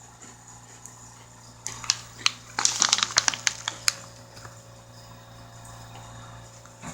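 Crisp toasted-coconut snack squares being crunched, a flurry of sharp crackles and clicks lasting about two seconds, starting about two seconds in.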